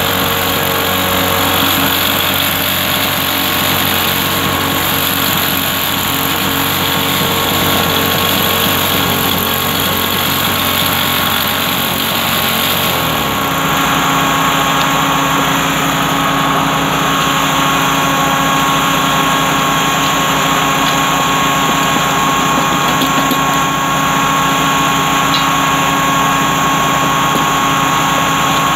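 Small engine-driven track tool running steadily under load during rail welding work. Its note changes about halfway through, then holds as a steadier hum.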